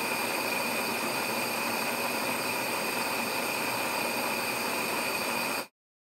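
Steady hiss of a gas pilot flame burning, with a high whistling tone in it, cutting off suddenly near the end as the pilot light goes out.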